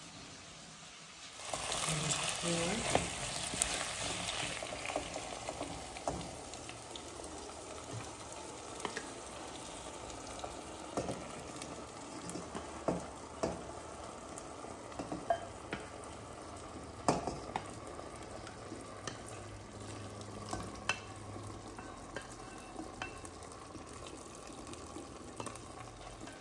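Ostrich meat and vegetables frying in olive oil in a pan as the marinated meat is tipped in: a louder sizzle starts about a second and a half in and settles into a steady sizzle, with scattered light knocks.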